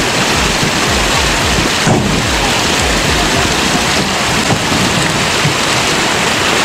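Loud, steady rush of a fast-flowing river surging around a truck stuck in the water.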